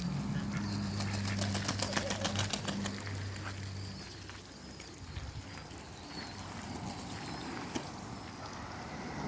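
Domestic ducks and geese calling with quacks and honks. A low steady hum runs for the first four seconds, and a quick run of rapid taps comes from about one to three seconds in.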